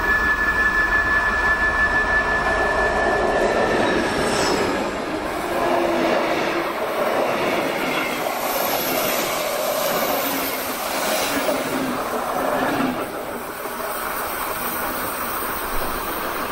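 Passenger train hauled by a class 132 diesel locomotive passing on a curve, with a steady high whine in the first few seconds. Then the coaches roll by with clattering wheels, and the noise eases off near the end.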